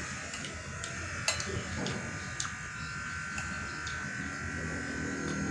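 A steady buzzing hum with a few light clicks and taps scattered through it.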